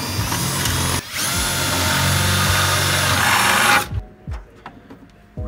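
Cordless drill boring through a car's sheet-steel floor pan. It runs for nearly four seconds with a brief break about a second in, then stops, leaving a few faint clicks of handling.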